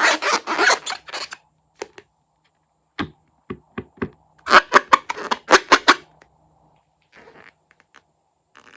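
Fluffy slime being squished and pressed by hand, giving bursts of sticky crackling and sharp clicks. There are short gaps between the bursts, and the thickest run comes a little past the middle.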